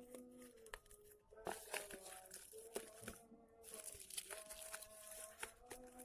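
Origami paper crinkling and rustling as hands fold and press the creases of a multi-layered paper model, with scattered sharp crackles.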